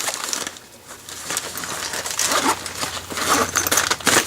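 Rustling and clicking of gear being handled and rummaged out of a bag, with a sharp knock near the end.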